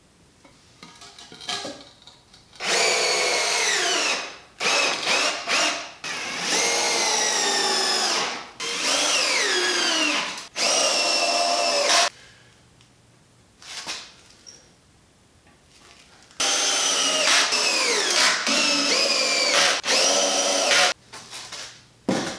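Cordless drill driving screws into 2x4 lumber in a series of runs, each a second or two long, with the motor whine dropping in pitch as each screw pulls in and loads the motor. There are brief pauses and small knocks between runs.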